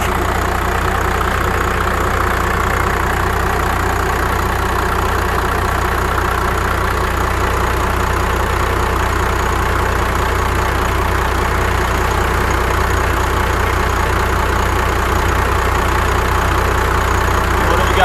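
1995 Dodge Ram's 5.9-litre Cummins inline-six diesel idling steadily, heard close up with the hood open.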